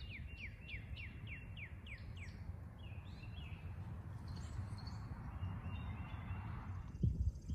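A bird singing a run of quick down-slurred whistled notes, about four a second, that stops a little after two seconds in, with a few more notes soon after. Underneath is a steady low rumble, and a few low thumps come near the end.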